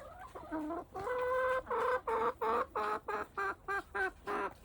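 Chicken clucking: one long drawn-out call about a second in, then a steady run of short clucks, about three a second.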